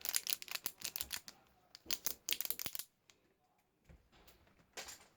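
Plastic fidget toys being handled and rummaged, giving a rapid run of crisp clicks and rattles for about three seconds, then a brief burst of clicks near the end.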